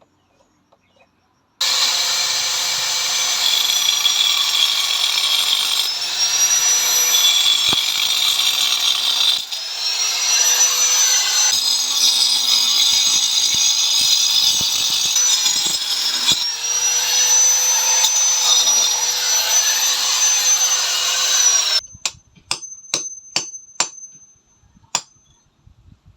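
Electric power tool running under load for about twenty seconds, its high whine dipping and recovering in pitch as it works, then switched off, followed by a few sharp clicks.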